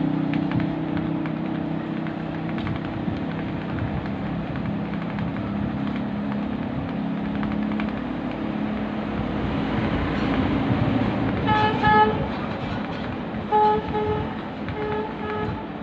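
Street traffic noise with a low engine hum that fades over the first few seconds, then a vehicle horn honking in short repeated toots through the last four seconds or so.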